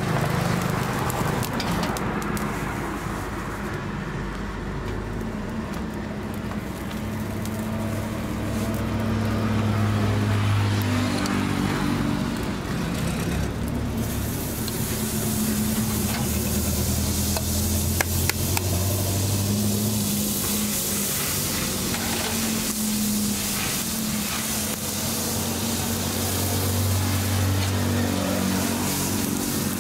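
Food sizzling on a hot iron griddle, with a low hum of traffic that swells and fades and a few brief clinks.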